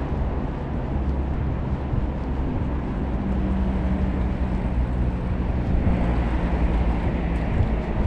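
Wind buffeting the microphone as a heavy, steady low rumble, with a faint low hum from about three to seven seconds in.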